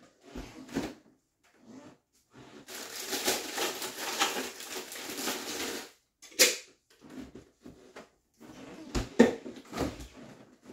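Household handling at an open refrigerator: a few seconds of rustling, then sharp clicks and knocks as things are moved about on its shelves.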